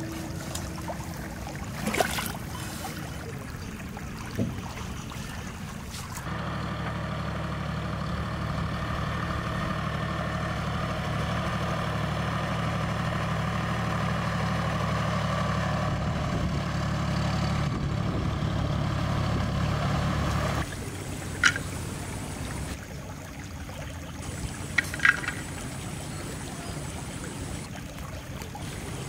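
Tractor engine running steadily, lasting about fifteen seconds and cutting off suddenly. Before it come a couple of sharp knocks from a cleaver on the fish, and after it a few sharp clicks.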